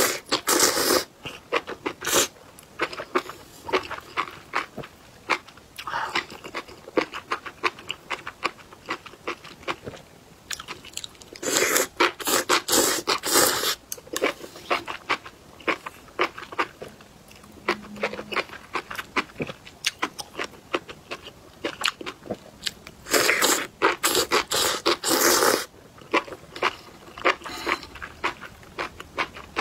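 A person eating spicy enoki mushrooms in chili oil: wet, clicky chewing and slurping of the mushroom strands, with three louder, denser spells of slurping spread through.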